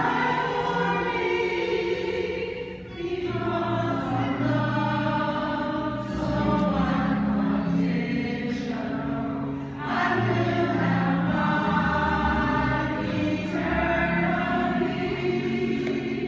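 Mixed choir of men's and women's voices singing together in harmony, with short breaks between phrases about three seconds in and again near ten seconds.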